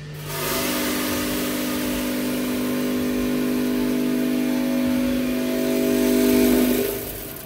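Automatic coffee-bean weighing machine running: its feeder motor hums steadily over the rush of roasted beans pouring into the weigh hopper. The hum swells slightly, then stops about seven seconds in as the dose nears its preset weight.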